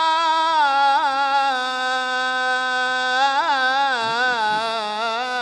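A man's unaccompanied voice chanting one long melismatic note in the Damascene pre-dawn supplication style, sliding down in pitch over the first second and a half, then held and turned with wavering ornaments from about three seconds in.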